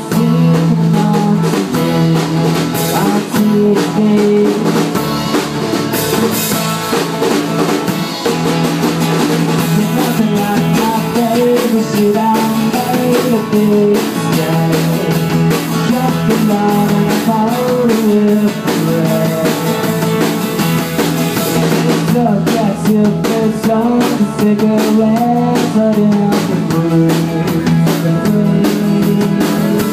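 Live band playing: two acoustic guitars strummed over a drum kit.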